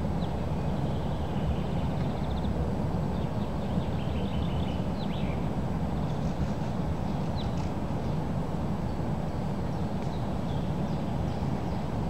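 Strong wind blowing steadily against the microphone, a dense low rush. Small songbirds chirp and trill faintly now and then above it.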